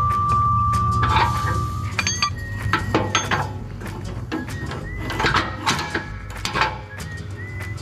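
Irregular steel clinks and knocks as the mower deck's spring-loaded locking pin is worked and its steel front link arm is seated in the deck bracket.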